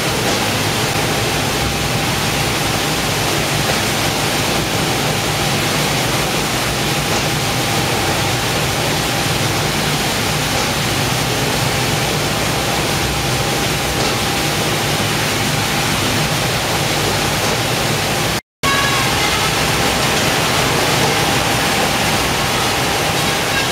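Fish processing line machinery running: conveyors, motors and water spray merge into a loud, even noise with a faint steady hum. It cuts out for a moment about three-quarters of the way through, then carries on unchanged.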